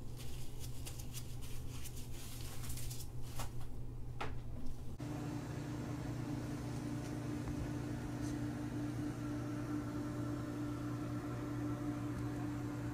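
Light handling clicks and rustles over a low room hum. About five seconds in, the sound switches abruptly to a steady mechanical hum with a constant low tone, like a fan or appliance running.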